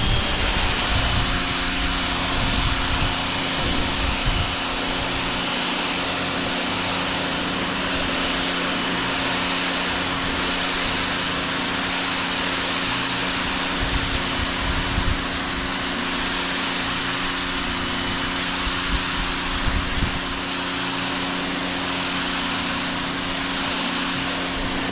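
Greenworks 1600 PSI electric pressure washer running, its pump motor humming steadily under the loud hiss of the water jet blasting dirty concrete.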